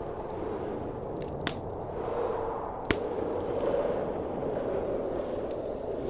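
Wood fire crackling, with two sharp pops about one and a half and three seconds in, over a steady roar of blizzard wind.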